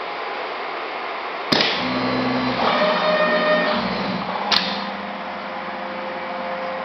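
A two-component polyurethane gasket dispensing machine at work, with a steady mechanical hum throughout. About a second and a half in there is a sharp click, then about three seconds of louder motor whine with several steady tones. A second sharp click comes about four and a half seconds in, after which the machine settles back to a steady hum with a held tone.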